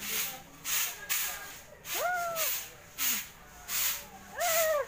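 Stick broom sweeping volcanic ash on pavement: a quick, regular series of scratchy, hissing strokes. Two short high-pitched calls, rising then falling, sound about two seconds in and near the end.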